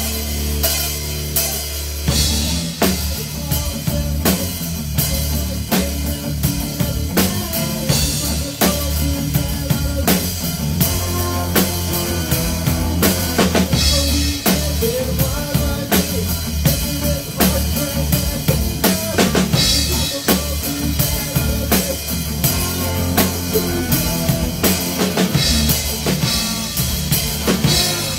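Live rock band playing, heard close to the drum kit: bass drum, snare and cymbals struck in a fast steady beat over the rest of the band.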